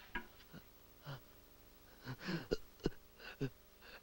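A person's short non-speech vocal sounds: a handful of brief catches of voice and breath, scattered with gaps between them, with two sharp clicks about two and a half seconds in.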